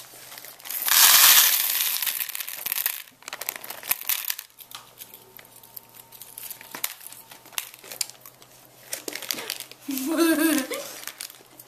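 Candy wrappers crinkling: foil and plastic candy packaging being handled and opened, with a loud rustle about a second in that lasts a couple of seconds, then lighter crinkles and small clicks.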